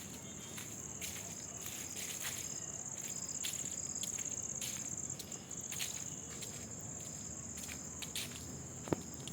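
A steady, high-pitched insect trill, like crickets, runs without a break. Scattered sharp clicks or snaps sound over it, the loudest shortly before the end.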